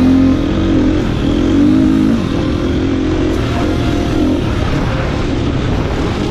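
2017 KTM 350XC-F's single-cylinder four-stroke engine running under load as the dirt bike is ridden, its revs rising and falling with the throttle.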